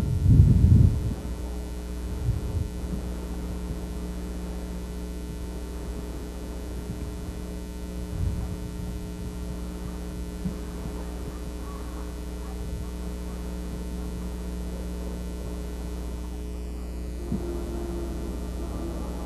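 Steady electrical hum at a fixed pitch, with a few low thumps in the first second and again about two and eight seconds in. A wavering tone joins near the end.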